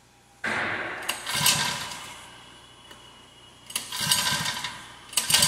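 Small gas engine being pull-started by its recoil starter: three pulls, each starting suddenly and fading away over a second or more, without the engine settling into a steady run. The engine's magneto has been replaced by a Hall-effect sensor and FPGA-controlled electronic ignition.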